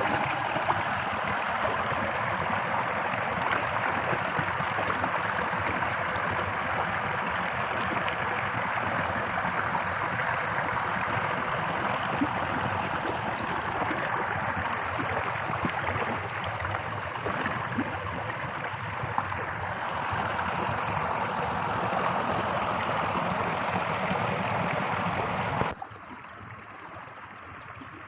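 Running water flowing with a steady rushing, gurgling sound. About 26 seconds in it drops suddenly to a quieter, duller rush.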